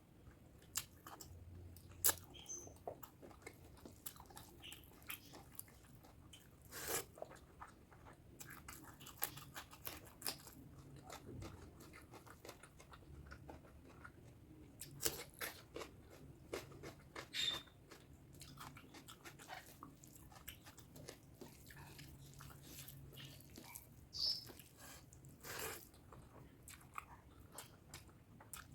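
Close-miked eating sounds: chewing and mouth smacks of spicy pork curry and rice, with irregular wet clicks and a few louder smacks.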